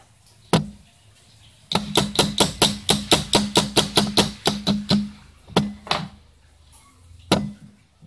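Socket ratchet wrench clicking while loosening a bolt on a refrigerator compressor: one click, then a quick even run of about four to five clicks a second for some three seconds, then a few single clicks.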